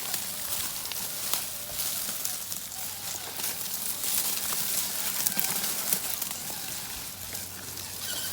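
Crunching and clicking of rock and grit under a radio-controlled rock crawler climbing over rocks, with many small sharp clicks and a faint steady hum underneath.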